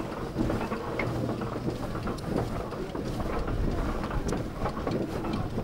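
Miniature steam traction engine running slowly past over gravel, with a low rumble and irregular crunching and knocking from its wheels and motion.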